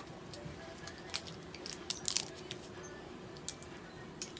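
Scattered light clicks and clinks of small hard objects, most of them bunched about two seconds in with another near the end, over a faint steady hum.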